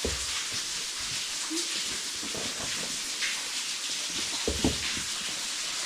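Steady rush of falling water from a waterfall, with a few short low thumps about four and a half seconds in.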